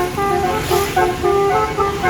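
Basuri telolet horn on a bus playing a quick melody of short, stepped notes.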